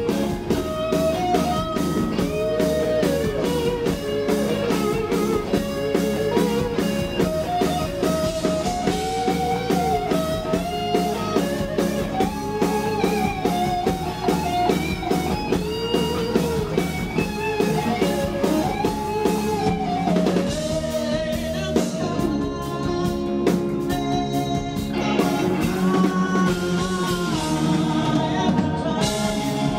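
Live rock band playing at full volume: a bending electric guitar melody over drum kit, bass and keyboards, with the drums dropping back briefly about two-thirds of the way through.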